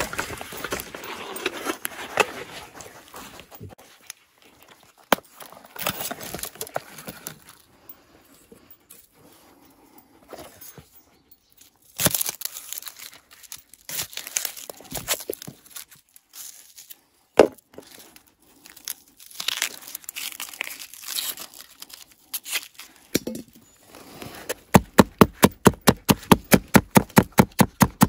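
Irregular crinkling and rustling handling noises with scattered sharp clicks, then near the end a fast, even run of sharp strokes at about five a second.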